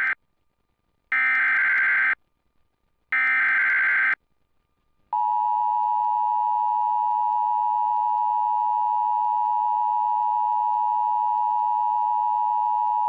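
Emergency Alert System signal from a TFT EAS 911 unit: the tail of the first SAME header data burst, then two more one-second screeching data bursts a second apart. About five seconds in, the steady two-tone attention signal starts and holds for about eight seconds. It announces an incoming tornado warning.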